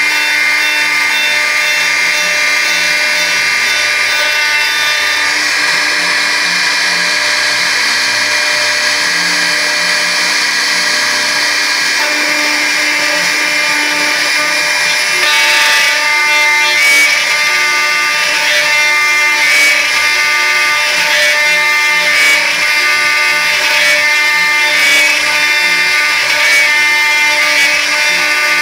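Homemade CNC router carving wood: the spindle runs with a steady whine while the stepper motors drive the axes. Their pitch shifts as the moves change. From about halfway through, the cutting comes in a regular back-and-forth rhythm of short rasping strokes.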